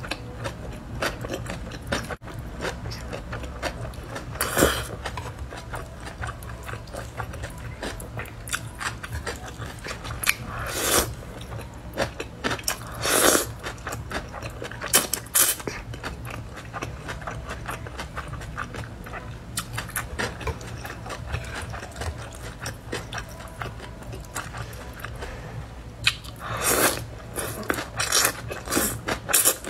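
Close-up eating sounds of a person chewing cold wide liangpi noodles, with a steady run of small mouth sounds and louder slurps every few seconds as strands are drawn in.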